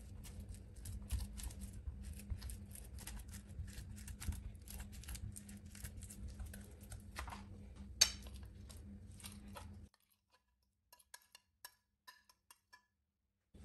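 Metal fork mashing peeled bananas on a ceramic plate: quick, irregular clicks and taps of the tines against the plate, with one sharp clink about eight seconds in. After about ten seconds only a few quieter taps remain as the mash is scraped off the plate into a glass bowl.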